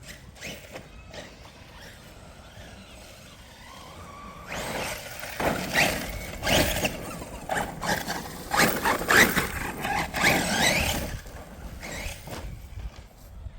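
Radio-controlled car being driven: electric motor whining and tyres squealing in repeated short bursts, starting about four and a half seconds in.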